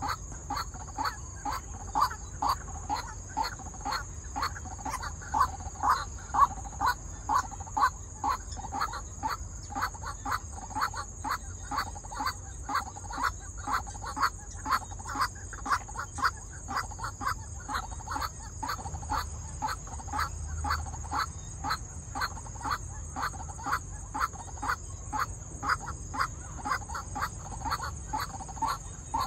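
White-breasted waterhen calling over and over in a steady rhythm, about two short calls a second: a decoy bird calling to lure wild waterhens to the trap. A thin steady high whine runs underneath.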